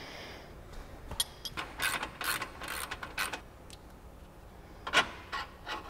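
Socket ratchet wrench clicking in a run of short strokes, then a few more after a pause near the end.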